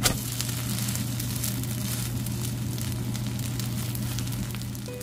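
Seafood and chive pancake frying in oil in a pan, sizzling and crackling steadily over a steady low hum. There is one sharp click right at the start.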